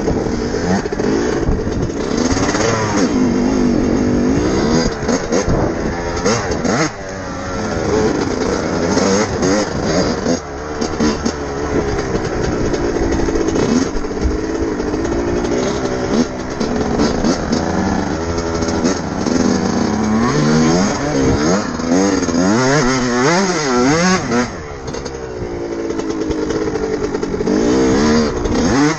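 Two-stroke 125 cc single-cylinder engine of a 2000 Yamaha YZ125 dirt bike, ridden on a trail, revving up and down again and again as the throttle is worked and let off. It pulls cleanly, which the rider takes as a sign that the carburettor jetting is right.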